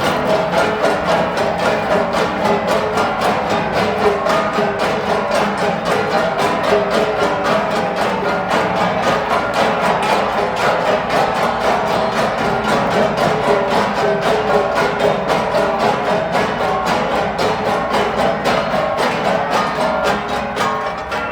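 Ensemble of flat gongs struck in a quick, even beat, with ringing metallic tones layered over one another.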